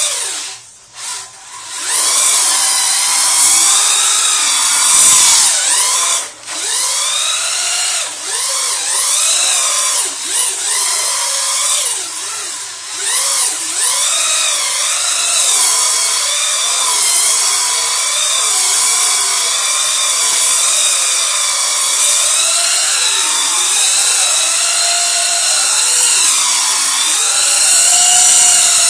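Duratrax Evader RC truck's electric motor and drivetrain whining at high revs as it spins donuts, the pitch wavering up and down with the throttle. There are a few brief throttle lifts in the first half.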